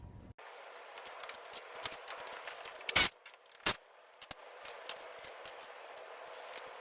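Hand tools working on the ATV's skid-plate bolts: a few sharp metallic knocks and clicks, the loudest about three seconds in and another just after, over a steady background hiss.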